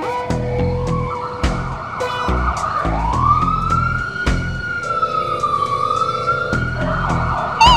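Ambulance siren wailing in a slow rise and fall, switching to a fast warbling yelp near the end, over background music with a steady beat.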